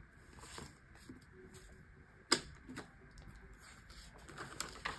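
Paper banknotes being handled and leafed through: faint rustling and flicking of bills, with one sharp click a little over two seconds in and a smaller one just after.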